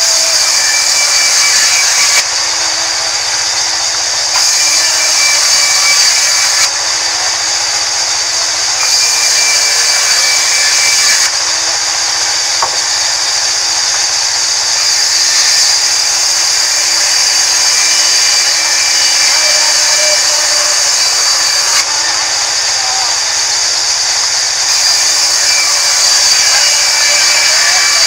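Stationary band saw running and ripping rain tree timber: a loud, steady high-pitched hiss of the blade cutting through wood over a low steady hum. The cutting noise rises and falls in level every few seconds as boards are fed through.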